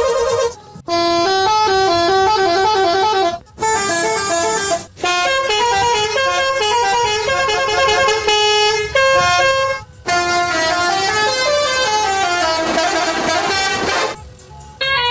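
Telolet multi-tone musical horn on an odong-odong mini tourist train, playing a fast tune of stepping notes. It comes in several phrases with short breaks between them and ends in a wavering up-and-down run.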